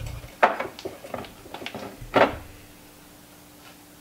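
Aluminium lure mold being handled and opened: two sharp metal knocks, about half a second in and just after two seconds, with lighter clicks between.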